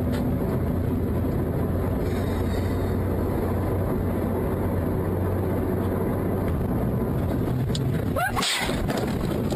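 Car cabin road and engine noise at highway speed, then a brief crash noise about eight seconds in as the car hits something.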